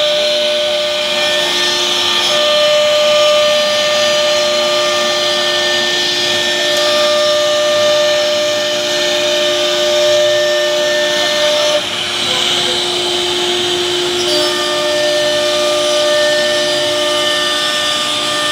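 CNC router spindle running steadily while its bit mills curved grooves into an MDF sheet: a high, steady whine of several tones over the hiss of cutting, with a brief dip in level about two-thirds of the way through.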